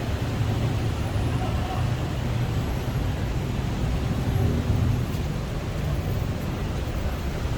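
Steady city road traffic: a low rumble of cars and buses running along the road below.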